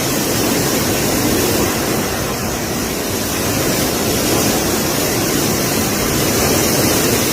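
Typhoon wind and driving rain: a loud, steady noise that swells and eases slightly.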